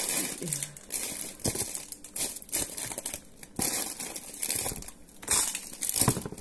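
Plastic snack wrappers crinkling in irregular bursts as small packets are handled and packed into a bin.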